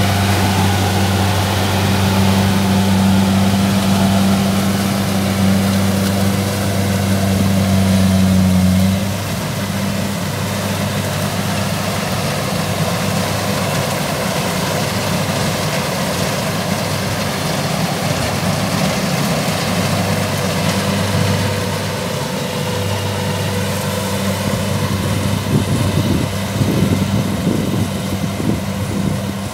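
Kubota combine harvester's diesel engine running steadily while harvesting rice, a deep, even hum. It is loud at first and drops noticeably in level about nine seconds in, then carries on quieter, with a few irregular knocks near the end.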